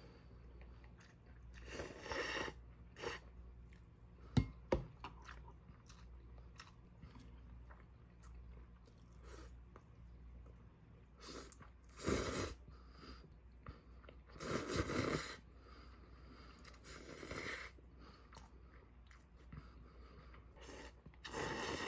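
A person eating: intermittent chewing and crunching, with a couple of sharp clicks about four seconds in.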